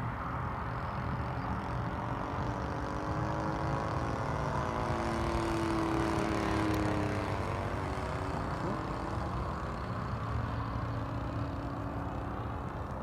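Engine of a Great Planes Big Stick .60 RC model airplane running in flight, its pitch sliding as the plane passes, over steady wind rumble on the microphone.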